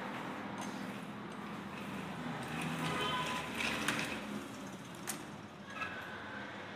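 Plastic wheels of a baby walker rolling across a tiled floor, with a few sharp knocks of the walker's frame.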